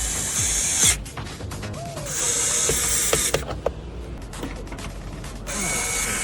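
Small electric screwdriver driving screws, whirring in two bursts of a little over a second each, with a few sharp clicks between them.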